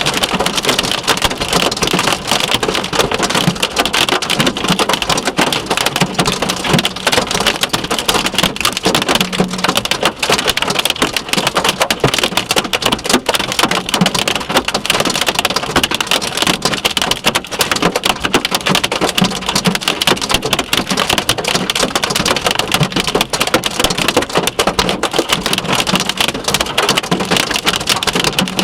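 Hail and rain pelting a Subaru's body and glass in a dense, unbroken drumming of hard impacts.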